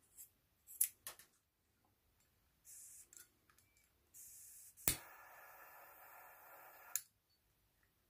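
Scissors snipping through paracord, a few sharp snips in the first second or so. Then a metal lighter clicks alight, and its flame hisses steadily for about two seconds before cutting off with another click, as the cut cord end is melted.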